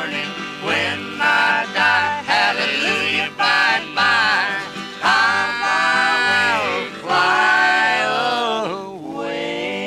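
Country song: a singer holding long, gliding notes over guitar and a repeating bass line, easing off near the end.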